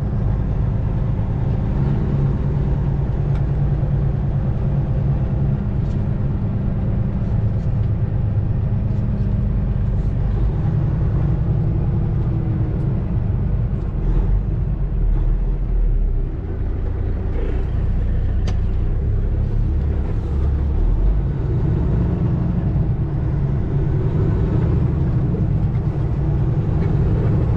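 Semi-truck diesel engine running steadily at low road speed, heard from inside the cab, with a brief dip in level about halfway through.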